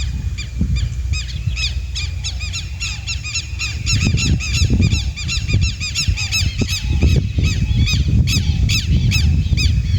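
A group of four southern lapwings calling together: a rapid, overlapping run of harsh, repeated strident notes, several a second, starting about a second in and growing denser.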